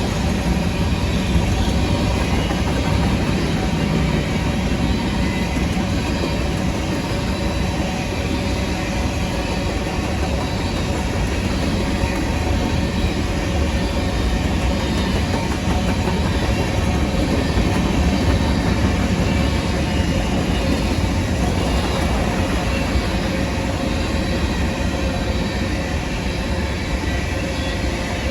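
Freight train of grain cars rolling along the rails: a steady, loud rumble of wheels on track.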